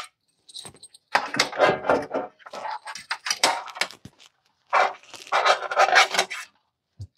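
Metal frame of an xTool conveyor feeder scraping and rattling as it is pushed and shifted into its slot in the laser cutter, in three bursts with clicks.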